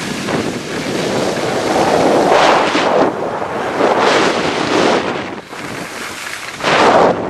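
Wind buffeting the camera microphone: a loud, rushing roar that swells in several strong gusts.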